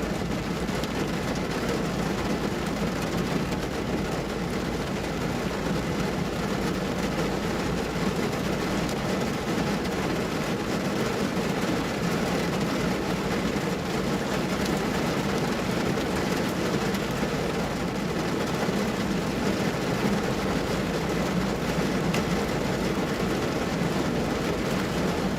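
Heavy downpour drumming steadily on a car's roof, heard from inside the car as a dense, even roar of rain without letup.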